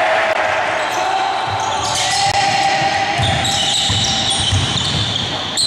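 Basketball game on an indoor wooden court: the ball dribbled with low thuds, trainers squeaking on the floor and players calling out, all echoing in a large sports hall.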